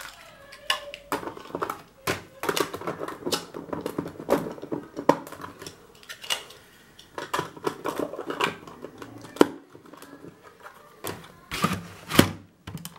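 Hard plastic LEGO bricks and modules clattering and clicking as they are handled and set in place: a long run of small knocks, some in quick clusters.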